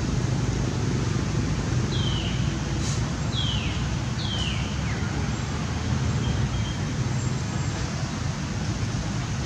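Steady low outdoor rumble like distant road traffic, with three short high calls about two seconds in, about a second apart, each falling in pitch.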